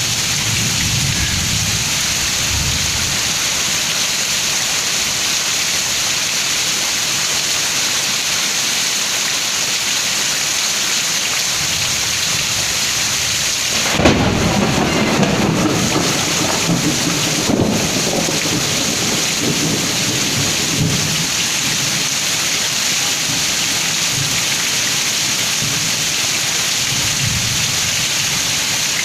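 Heavy rain pouring steadily in a thunderstorm. About halfway through, a sudden close clap of thunder cracks and rumbles on for several seconds with a few further cracks, and fainter low rumbles of thunder come near the start and the end.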